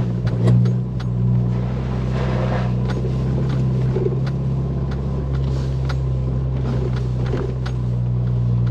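A 2023 Ford Bronco's 2.3-litre turbo four-cylinder engine drones steadily at low speed in first gear, in four-wheel high, heard from inside the cabin. Scattered light knocks and rattles come as the truck rolls over a rutted dirt track.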